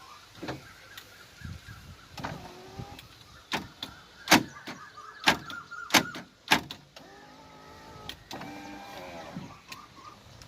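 Power window motor in an Ashok Leyland Dost pickup running with a thin steady whine, broken by several sharp knocks, the loudest in the middle. Short warbling pitched sounds follow near the end.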